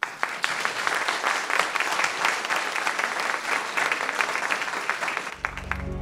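Audience applauding: dense clapping that dies away near the end as soft music comes in.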